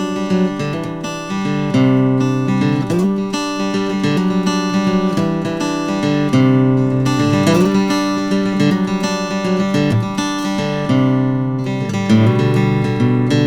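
Background music: acoustic guitar strumming chords with a steady, folksy rhythm.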